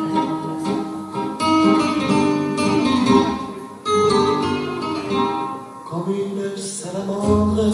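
Song music led by plucked acoustic guitar, a run of picked notes ringing one after another.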